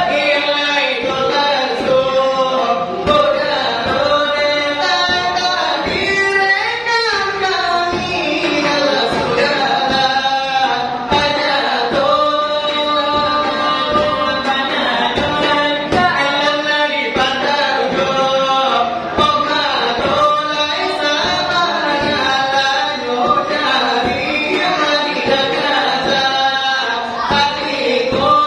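Salawaik dulang: Minangkabau singing with fingers tapping a rhythm on a metal tray (dulang), sung melody and quick percussive taps together.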